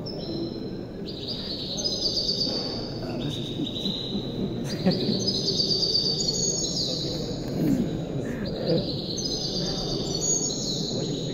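Caged songbird singing an almost unbroken run of high, quick phrases of trilled notes, over a low murmur of room noise and people in the hall.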